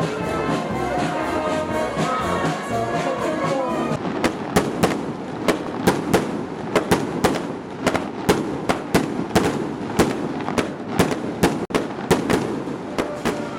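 Daytime fireworks going off: a rapid, irregular string of sharp bangs, about two or three a second, starting about four seconds in. Music plays underneath, heard clearly before the bangs begin.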